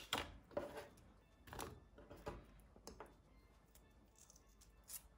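Faint, scattered taps and clicks, about six in five seconds, from a kitchen knife and red bell pepper strips being handled over a bamboo cutting board and a wooden bowl.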